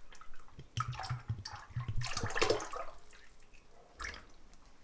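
Liquid caustic soda poured from a plastic bottle into a plastic tub of water, splashing and gurgling for about two seconds, then stopping; a short knock near the end.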